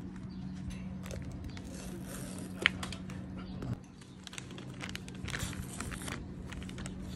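Plastic courier mailer bag crinkling and rustling as hands work at its packing-slip pouch, with a sharp click about two and a half seconds in. A steady low hum runs underneath.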